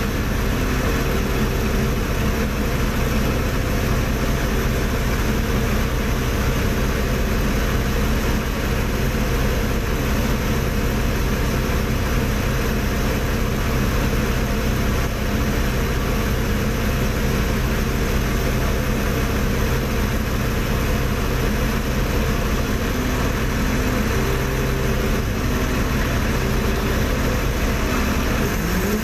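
A crane's heavy diesel engine running steadily, with a constant low hum and no change in speed.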